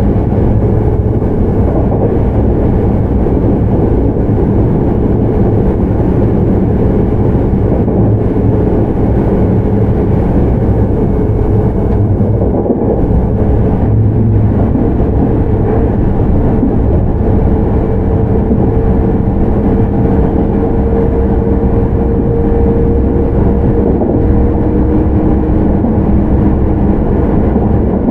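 JR Central 315 series electric train running at speed, heard from inside a motor car: a steady rumble of wheels on rail, with the hum of its Toshiba hybrid SiC VVVF-driven traction motors. A second, lower humming tone comes in near the end.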